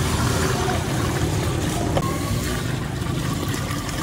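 Milk pouring in a steady stream from several packs at once onto crushed ice in a large metal pot, a continuous splashing pour.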